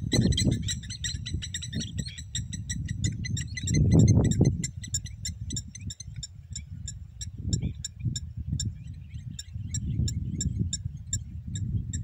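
Birds calling in rapid high chirps, about four a second, with several voices overlapping at the start. Wind buffets the microphone in gusts, loudest about four seconds in.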